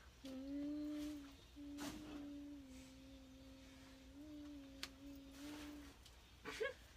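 A person humming low, held notes, with a short break about a second and a half in and a few small steps in pitch; a couple of faint clicks.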